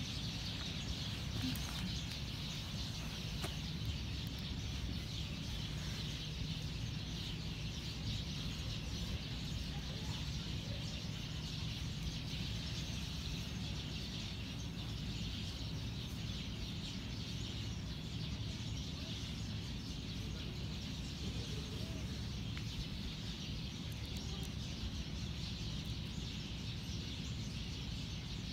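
Steady outdoor background noise: a low rumble under a constant high hiss, with no distinct events.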